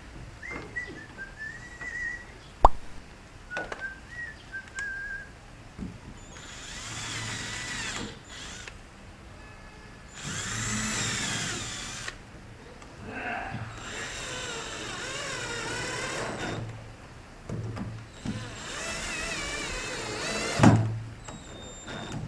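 A cordless drill runs into the plywood bow of a boat in four bursts of a couple of seconds each, starting about six seconds in, its speed wavering. A sharp knock comes about three seconds in, and a thump near the end.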